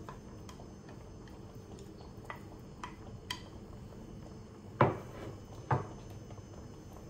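Wooden chopsticks clicking lightly against a ceramic plate as food is pushed off it into a pot, then two louder sharp knocks of ceramic dishware about a second apart.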